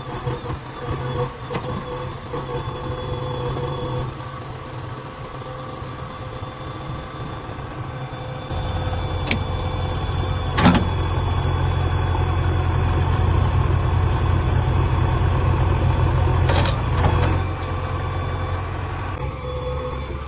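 Heavy diesel engine running, working harder and louder from about eight seconds in before easing near the end, with a few sharp metallic clanks, the loudest about ten seconds in and again about sixteen seconds in.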